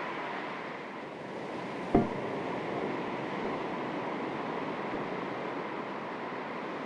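Calm sea waves lapping, a steady wash of water, with a single sharp thump about two seconds in.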